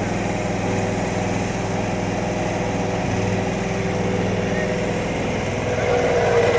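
An engine running steadily at a constant speed, growing louder with a higher tone near the end.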